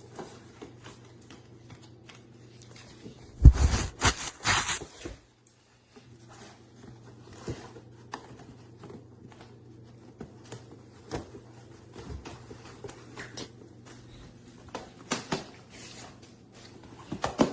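Rustling and scattered clicks of packaging being handled, with a loud burst of rustling and knocks about three and a half seconds in, over a steady low hum.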